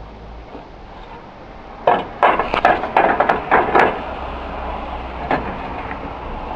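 A quick run of hard knocks and clatter, about a dozen sharp hits over roughly two seconds, starting about two seconds in. A steady rustling noise follows.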